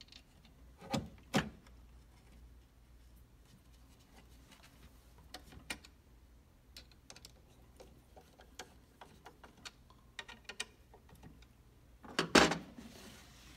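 Small clicks and ticks of a screwdriver working the screws of a lock's metal faceplate, with two sharper clicks about a second in and one loud knock near the end.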